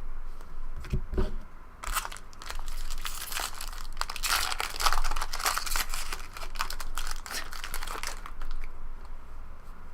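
A 2012 Bowman Draft Jumbo trading-card pack wrapper being torn open and crinkled. A dense crackling run starts about two seconds in, is loudest midway and dies down near the end.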